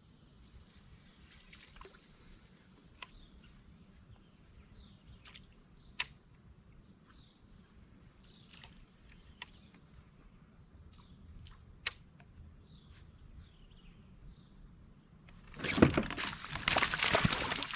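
Faint water drips and small trickling sounds around a kayak, then about two seconds before the end a sudden burst of loud splashing as a hooked bass thrashes at the surface.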